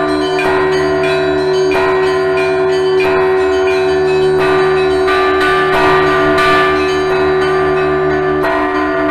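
Russian Orthodox church bells rung by hand: several bells struck together in a rapid repeating pattern, with quick strikes on smaller bells and a heavier strike about every second and a half, all ringing on over one another.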